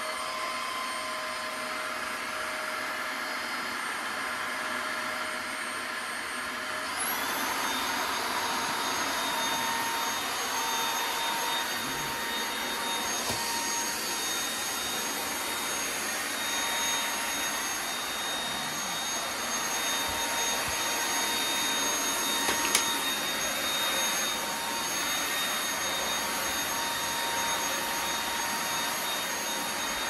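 Cordless stick vacuum with a brushless motor running steadily: an airy rush with a high whine. About seven seconds in it steps up to a faster speed, and the whine jumps higher in pitch and gets a little louder. A short click comes about two-thirds of the way through.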